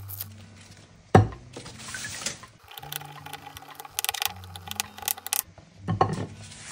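Chef's knife knocking and scraping on a wooden cutting board while ginger is peeled: a loud knock about a second in, a run of quick taps around four to five seconds, and another knock near the end.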